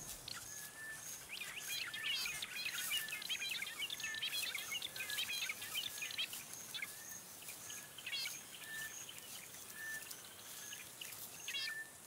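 Wild birds calling in the bush: a busy twittering of several birds, thinning out after the middle, over a short high piping note repeated evenly about every two-thirds of a second.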